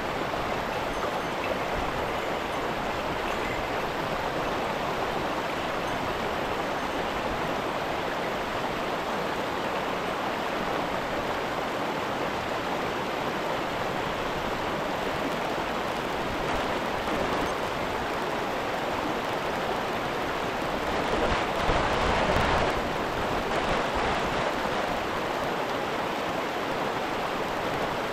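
Mountain stream water rushing over rocks, a steady even wash, swelling louder for a couple of seconds about three-quarters of the way through.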